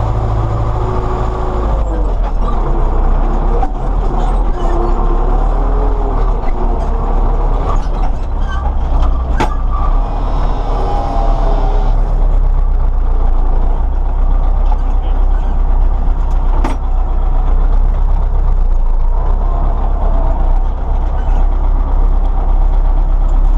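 Belarus MTZ-82 tractor's four-cylinder diesel running steadily, heard from inside the cab, with scattered knocks and rattles from the cab and the trailed disc harrow.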